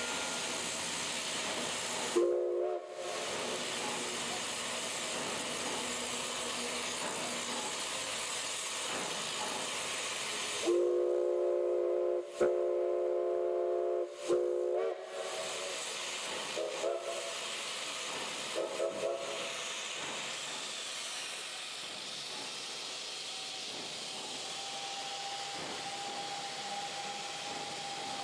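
A K-36 narrow-gauge steam locomotive hissing steam steadily while its chime whistle sounds several times: one short blast, then longer blasts with brief breaks about halfway through, then short toots.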